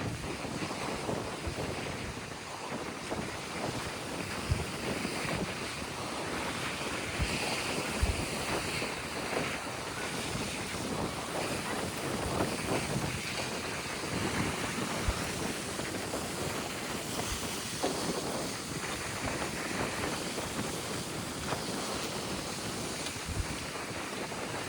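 Mediterranean surf breaking and washing ashore in a steady rush, with wind buffeting the microphone in a few sudden low thumps.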